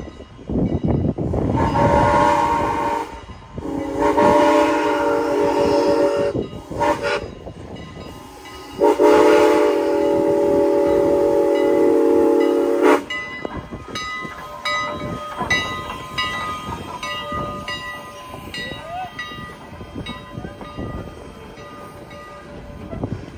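Strasburg Railroad No. 89's chime steam whistle blows the grade-crossing signal, long, long, short, long, with several notes sounding together. After the last blast the locomotive and its coaches roll past close by, with steady rolling noise and regular clicking from the wheels.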